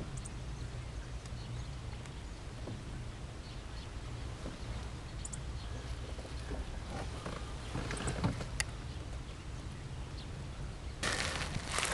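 Steady low outdoor rumble with a few faint clicks. Near the end comes a sudden, louder burst of rustling and handling noise.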